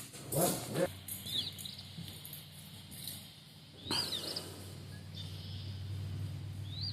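Birds chirping, three short bursts of quick rising-and-falling notes, over a steady low hum that starts about a second in.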